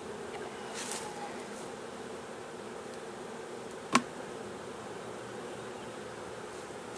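Swarm of honeybees buzzing steadily, a dense hum, with one sharp knock about four seconds in, louder than the buzzing.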